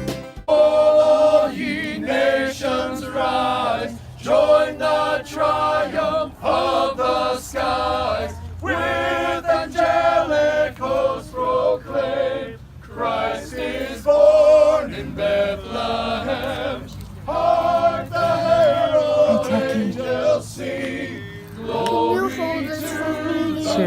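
A choir singing, its phrases a few seconds long with short pauses between them.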